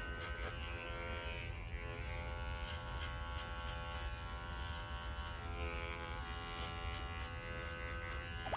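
Oneisall cordless electric pet clippers running with a steady buzz as they trim a dog's fur.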